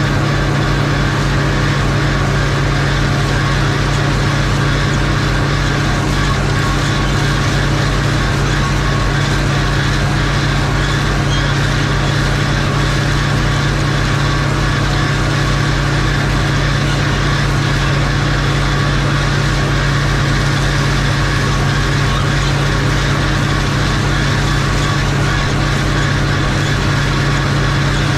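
Farm tractor's diesel engine running steadily at constant speed, a loud unchanging drone with no let-up.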